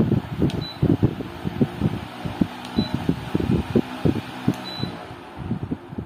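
V-Guard Enviro WF brushless DC wall fan running, its airflow buffeting the microphone in an uneven low rumble. Three short high beeps come about two seconds apart as the fan takes remote-control button presses.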